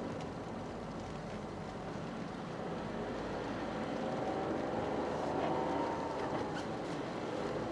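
Toyota GR Yaris on studless tyres driving on a winter road: steady road and tyre noise under the turbocharged 1.6-litre three-cylinder engine. About halfway through the engine note climbs, then eases off near the end.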